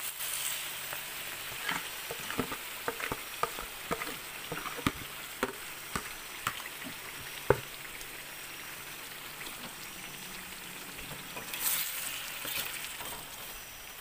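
Pounded cassava leaves frying in hot wild-boar lard in a wok: a steady sizzle with many crackling pops in the first half and one louder pop about halfway through, then a smoother, steady sizzle.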